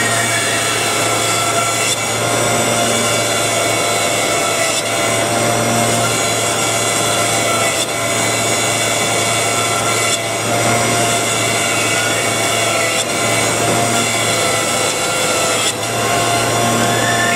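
Double-sided edge milling machine running, its two cutter heads milling the edges of wooden latoflex bed slats fed one after another at maximum feed speed. A loud, steady machine noise with held tones and a hum, dipping briefly every two to three seconds.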